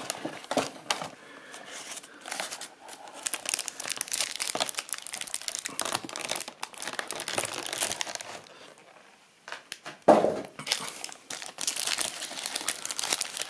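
Clear plastic packaging film crinkling and crackling as hands handle it and pull it away from the figure. After a short lull about nine seconds in comes the loudest crackle, then more crinkling.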